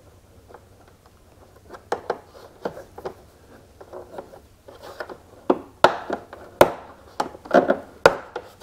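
Plastic retaining clips in a car's front bumper being worked loose with a small screwdriver: irregular plastic clicks and knocks, starting about two seconds in and coming faster and sharper in the second half.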